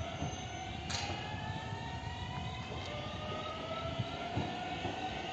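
A train pulling out of the station and accelerating, with a whine that rises steadily in pitch. There is a sharp click about a second in, and a few low thuds near the end.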